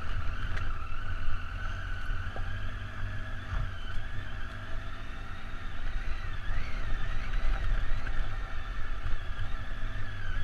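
Triumph Tiger motorcycle engine running at a steady, even pitch that wavers slightly midway, over a low rumble of wind on the microphone.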